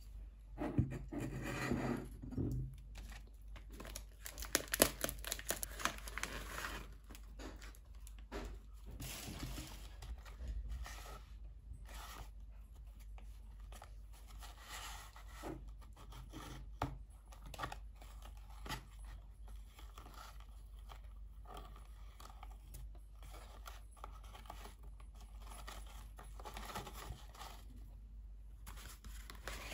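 Wrapping paper crinkling and tearing as it is pulled off a small gift box, loudest over the first several seconds. Then scattered light taps, scrapes and rustles as the twine round a kraft cardboard box is untied and the box is opened on a table.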